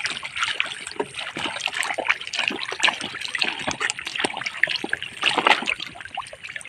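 Many tengra catfish stranded in the shallow mud of a drained pond, flapping and splashing: a dense, irregular patter of small splashes.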